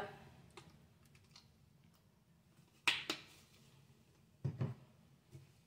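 Ketchup squeezed from a bottle into a mixing bowl: a sharp click and squirt about three seconds in, then a short duller sound about a second and a half later.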